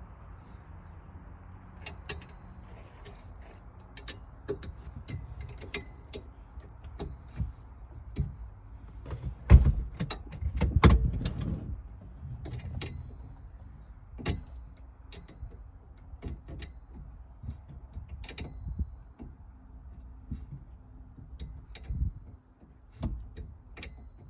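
Scattered clicks and knocks of hand tools and metal parts as a harness support bar is bolted into a Jeep JK, with a loud thump and a clattering scrape a little before the middle.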